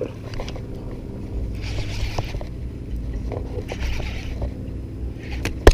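Baitcasting reel being cranked in short spells about every two seconds, each a brief whirring hiss, over a steady low rumble. A single sharp click near the end.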